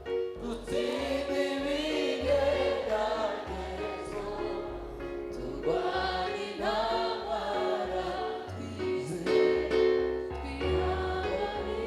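Background gospel music: a choir singing over a steady bass line.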